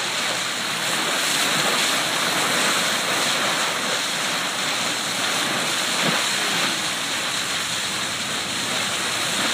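Steady rush of water at the bow of the R/V Knorr, steaming at about 11 knots, with wind noise.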